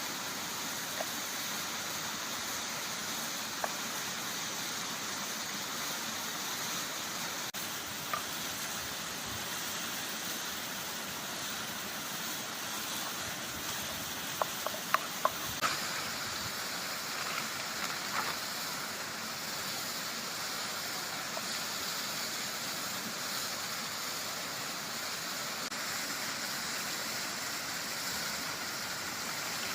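Steady rushing noise, like running water or rain, with a short cluster of sharp clicks about halfway through.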